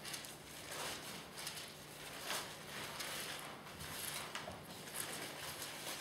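Bible pages being turned: soft, irregular paper rustles over a low steady hum.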